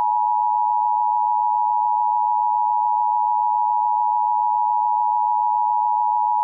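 Emergency Alert System attention signal: a steady two-tone alert held without a break at an even level.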